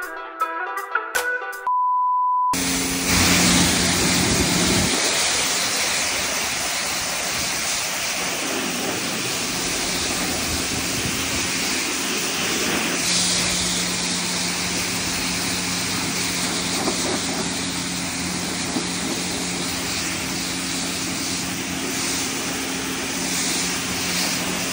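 Self-serve car wash pressure wand spraying water onto a mud-caked racing suit: a loud, steady hiss of spray with a steady low hum underneath. It starts about two and a half seconds in, after a short stretch of guitar music and a single steady beep.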